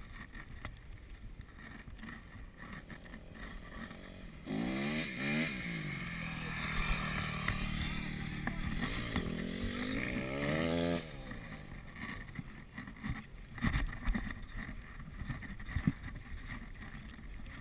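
Motocross dirt bike engines revving for about six seconds in the middle, the pitch falling and rising as they rev. Before and after, only a low rumbling noise with a few knocks.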